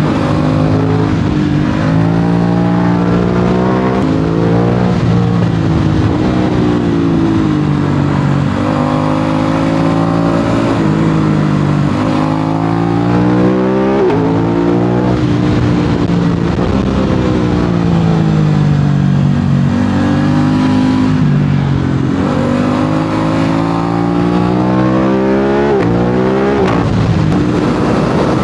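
Aprilia RS 660's parallel-twin engine through an SC-Project SC1-R exhaust, pulling hard up through the revs and dropping back again and again as it shifts gears and slows for bends. Near the end the pitch climbs steeply, then falls.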